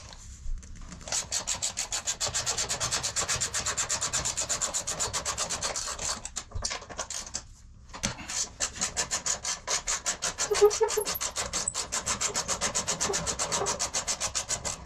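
Hand ratchet clicking rapidly, about ten clicks a second, as it is worked back and forth loosening the 8 mm bolts on the rear fender bars. It pauses for about two seconds midway, then starts again.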